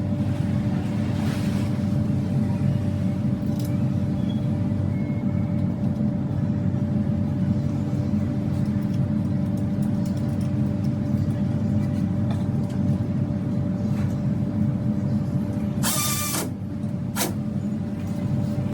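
Steady car running noise: a low rumble with a constant hum. Near the end there is a brief sharp, ringing noise and a second short click about a second later.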